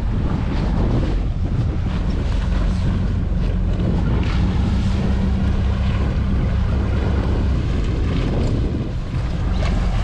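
Wind buffeting the microphone over choppy water, with the steady low sound of a tow boat's engine running close by.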